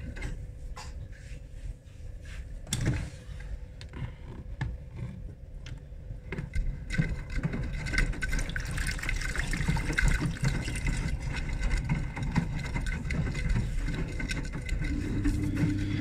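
Water running and sloshing in a Beko WTIK84121 washing machine's drum during its cottons 60 main wash, with rubbing and knocks from close handling in the first seconds. A steady low hum comes in near the end.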